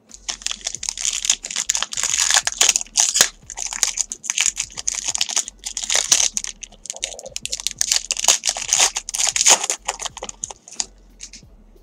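Foil wrapper of a trading-card pack being torn open and crinkled by hand: a dense, irregular crinkling with short gaps, stopping about eleven seconds in.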